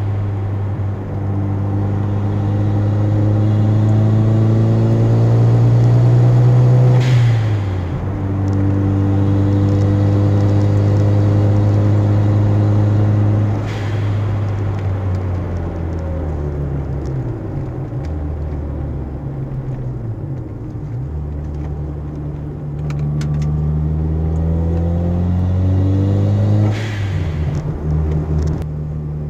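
Toyota Celica GT-Four's turbocharged four-cylinder engine, heard from inside the cabin, pulling hard up through the revs in one gear after another. At each lift-off for a gear change the blow-off valve vents with a short whoosh, three times: about seven seconds in, about fourteen seconds in and near the end. The engine note falls for a while in the middle as the car slows.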